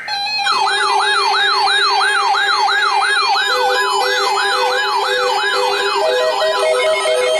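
Electronic siren-style alert tone: a fast yelping sweep that rises and falls about two to three times a second, over steady held tones. Pulsing beeps join about halfway through, and the sweep fades a little toward the end.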